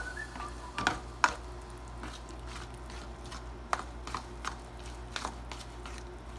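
A spoon stirring wet wheat-flour and jaggery-water batter in a stainless steel bowl: soft squelching broken by irregular sharp clicks of the spoon against the steel, over a low steady hum.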